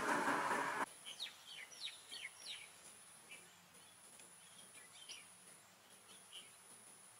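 A loud rushing noise cuts off sharply about a second in. Then birds call with short, quick falling chirps, thickest over the next two seconds and sparser after. A steady high insect buzz runs beneath them.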